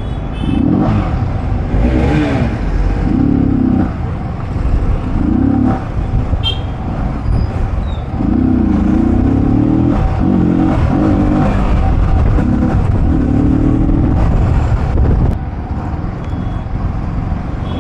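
Motorcycle engine revving up and down in short runs as it is ridden through traffic, over a steady low rumble; the revs ease off near the end.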